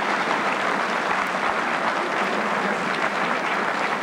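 Arena crowd applauding steadily at the end of a boxing round, a dense patter of many hands clapping.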